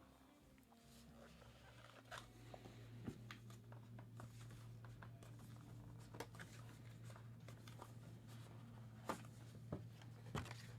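Near silence: faint scattered clicks and light rustling of trading-card packaging being handled, over a steady low hum.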